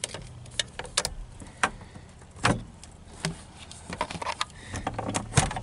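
Scattered sharp clicks and knocks of metal parts being handled as a replacement gear-shifter part is fitted and worked, over a faint low steady hum.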